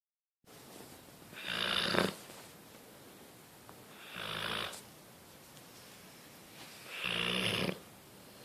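A sleeping dog snoring: three snores, about three seconds apart.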